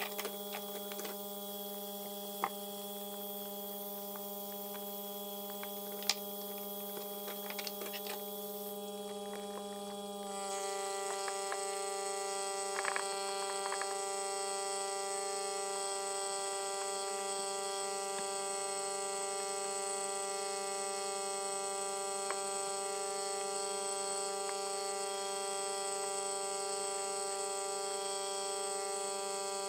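Vacuum pump running with a steady hum while a plastic vacuum bag is held down over a leather holster for vacuum forming; the hum shifts and grows slightly louder about ten seconds in. A few light taps and crinkles of the plastic as hands work the leather through the bag.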